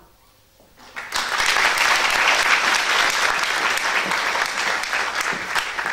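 Audience applauding, starting suddenly about a second in and keeping up steadily.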